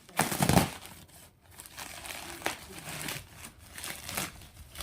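Packaging being handled and crinkling: a loud rustle about half a second in, then irregular smaller crinkles and rustles.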